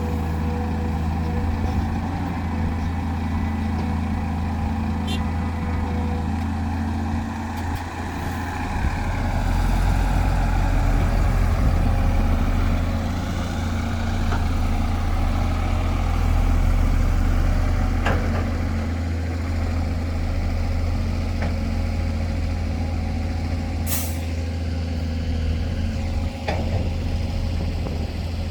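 Heavy diesel engines of a bulldozer and dump truck running steadily, working harder and louder for several seconds in the middle. A few short knocks, and a brief sharp hiss of air like an air-brake release about 24 seconds in.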